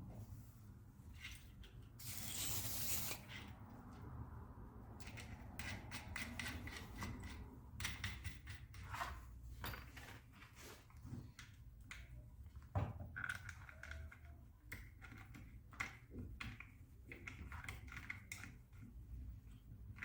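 Quiet workbench handling of a hand router's parts and tools during repair: scattered small clicks and knocks of metal and plastic, with a short hiss about two seconds in.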